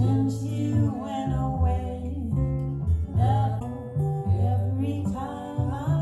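Recorded music played over a pair of B&W 802 Nautilus floor-standing speakers and picked up by a phone in the listening room: a woman's slow jazz vocal over guitar and a line of stepping bass notes.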